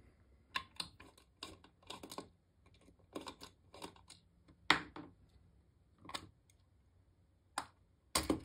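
Small screwdriver turning out the screws of a mini bench power supply's front panel, then the panel being worked loose from its case: a run of light clicks and scrapes. The sharpest come about five seconds in and just before the end.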